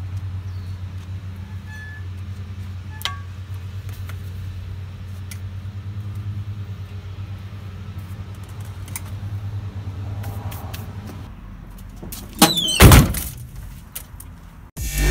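A vehicle engine running with a steady low hum that eases after about ten seconds. About twelve and a half seconds in comes a brief, much louder whoosh with a falling tone.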